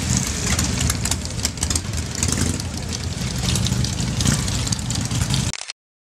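Several big cruiser motorcycle engines running and idling together in a crowd, a dense, loud rumble. The sound cuts out abruptly near the end.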